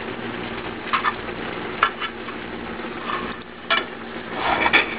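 A metal serving utensil scraping and clinking against a stoneware baking dish and a china plate while scooping baked pasta. There are a few short clinks over a steady hiss, the busiest near the end.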